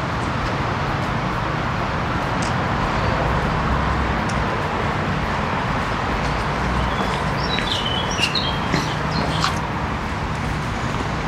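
A steady rushing background noise, with the taps of trekking poles and footsteps on stone steps, and a few short high bird chirps about two-thirds of the way through.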